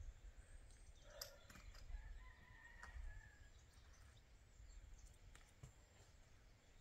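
A rooster crowing once, faint, starting about a second in with a long held note that ends around three and a half seconds in.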